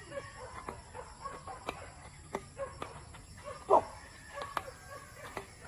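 Chickens clucking in the background, with sharp clicks of badminton rackets striking the shuttlecock during a rally and one louder short sound a little past halfway.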